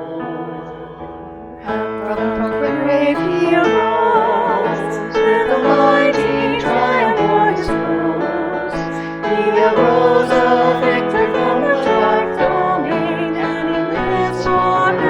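A hymn sung with piano accompaniment. The piano plays softly at first, and about a second and a half in the singing comes in and the music gets louder.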